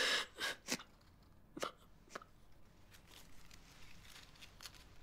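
A young woman crying: a handful of sharp sniffs and catching, sobbing breaths in the first couple of seconds, then quieter breathing.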